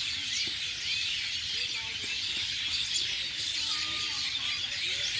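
Many birds chirping at once in a dense, steady chorus of short, overlapping high calls.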